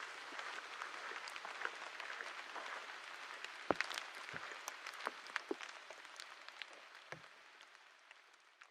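Campfire crackling, a steady hiss with scattered sharp pops, fading out toward the end.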